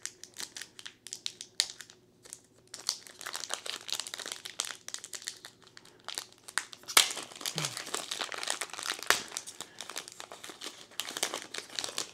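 Foil wrapper of a One Piece card game booster pack crinkling and crackling as it is twisted and torn open by hand: a run of sharp crackles that grows denser in the second half, loudest about seven seconds in.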